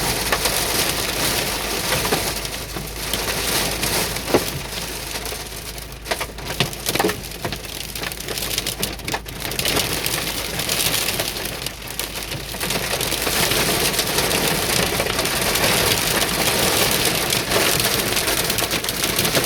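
Heavy rain mixed with hail pelting down on surfaces: a dense, steady hiss with scattered sharp hailstone hits. The downpour eases a little in the middle and builds up again in the second half.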